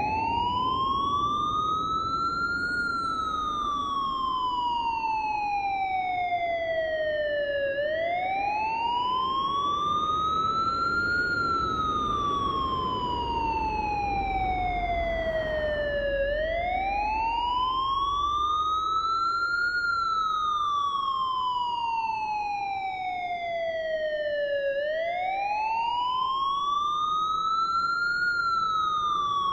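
Siren in a slow wail: the pitch climbs for about three seconds and then falls for about five, repeating every eight and a half seconds or so, over a low steady rumble.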